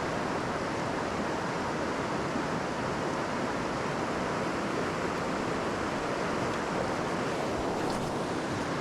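Steady rush of flowing water from a small creek.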